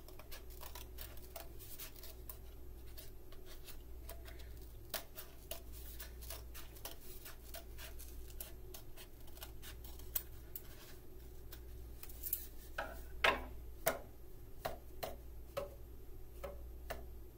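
Scissors snipping many small cuts into a cardboard paper-towel tube to shorten it and raise its pitch. From about thirteen seconds in, the tubes are tapped a few times in turn to compare their pitch.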